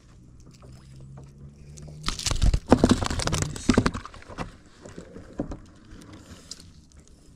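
Handling noise: a sleeve rubbing over the camera microphone and knocks against the plastic kayak, loudest and densest from about two to four seconds in, then a few scattered knocks. A faint steady low hum runs under the first two seconds.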